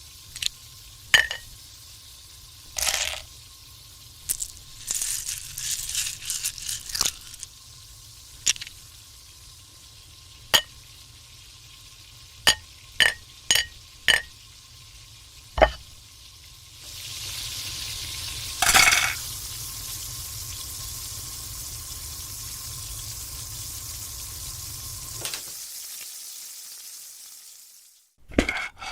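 Scattered sharp clicks and clinks, then about seventeen seconds in a steady frying sizzle that runs for some eight seconds, with a louder crackle near its start.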